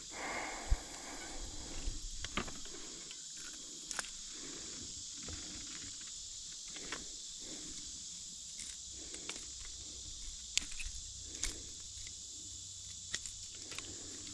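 Steady high-pitched drone of insects, with scattered sharp clicks and soft swishing, splashy noises about once a second.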